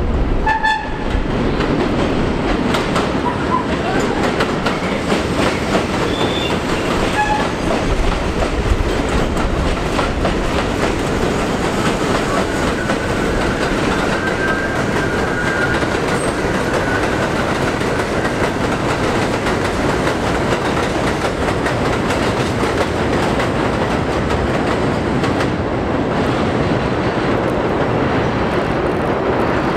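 New York City Subway trains running on elevated steel track: a steady rumble with the clickety-clack of wheels over the rail joints. Brief high wheel squeals come in the first few seconds, and a faint squeal is heard midway.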